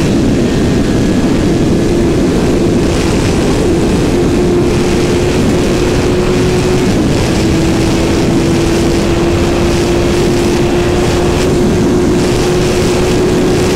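Kawasaki ZX-9R inline-four sportbike engine pulling at steady high revs at speed, its note holding nearly level and creeping slightly higher, with heavy wind rush on the microphone.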